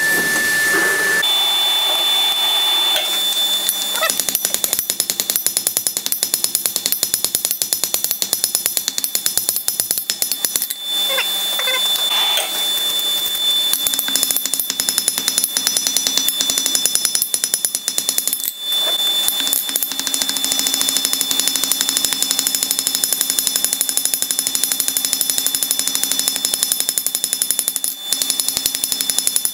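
Blacksmith's hand hammer striking a red-hot steel bar on an anvil in rapid, repeated blows, starting about a second in, with a high steady ring from the anvil that hangs on between strikes.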